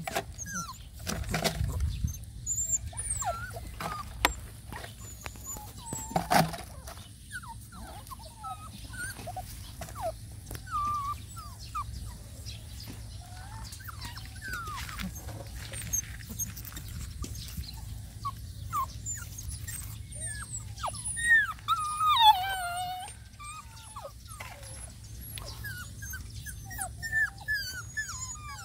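Puppies whimpering: short high-pitched whines scattered throughout, with a louder run of whines about three-quarters of the way through.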